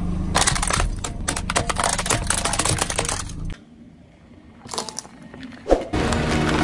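Hard plastic toys cracking and snapping under a rolling car tyre, with a low steady hum beneath. About halfway through it drops almost to quiet, with only a few light clicks, and the crackling starts again near the end.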